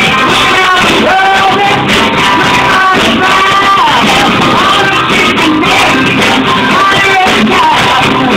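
Live rock band playing loudly, with a woman singing lead into a microphone over guitar and drums.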